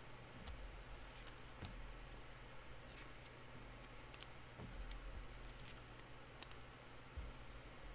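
Faint, irregular clicks and soft rustling of trading cards being flipped through and sorted by hand, over a low steady hum.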